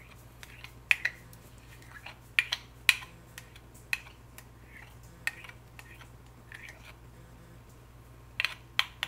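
Scattered sharp clicks and taps of a kitchen utensil knocking against a dish while meatloaf glaze is scraped out and spread, with a low steady hum underneath. The taps come at irregular moments, a pair close together near the end.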